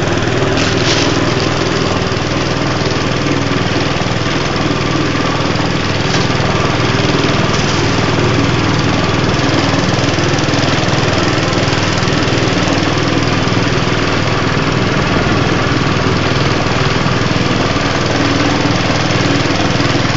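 Small boat engine running steadily at a constant speed, carrying the boat along.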